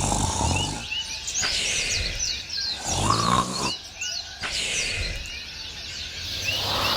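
Birds chirping over an outdoor noise bed: many short, quick chirps throughout. About three seconds in, a louder, lower pitched call or voice-like sound rises above them.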